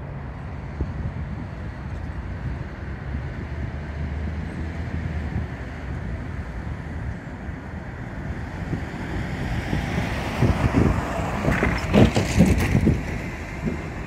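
Low, steady outdoor rumble of city traffic and a slowly approaching freight train's diesel locomotives, with wind buffeting the microphone. The wind noise swells and is loudest from about ten to thirteen seconds in.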